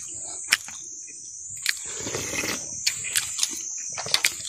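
Steady high-pitched insect drone, with scattered sharp clicks and taps over it.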